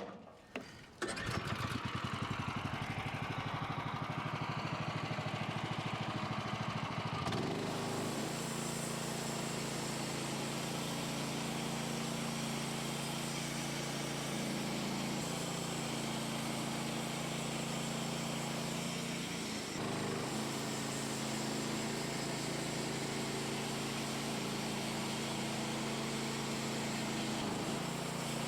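Small gas engine of a portable bandsaw sawmill starting about a second in, then throttled up about seven seconds later and running steadily at sawing speed.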